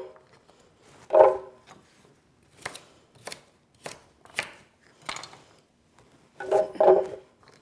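Kitchen knife roughly chopping carrots on a cutting board: a run of separate sharp strokes about half a second apart, with two louder, ringing knocks, one about a second in and one near the end.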